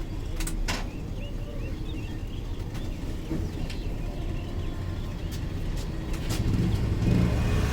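Road traffic rumbling, louder near the end as a vehicle passes close, with small birds chirping again and again. A few sharp clicks stand out, two of them about half a second in.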